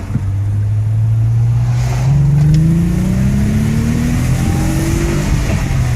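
Nissan Maxima engine accelerating hard, its pitch climbing steadily for about five seconds, then easing off near the end.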